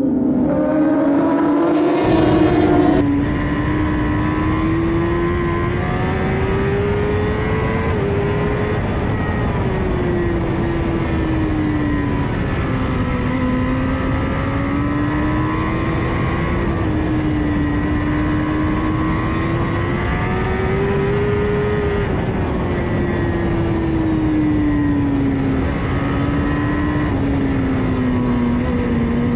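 A pack of racing sportbikes accelerating together off the start for about three seconds. Then a single Kawasaki ZX-10R inline-four engine heard from onboard at racing speed: its pitch climbs under throttle, drops sharply once on an upshift and falls away under braking into corners, over loud wind rush.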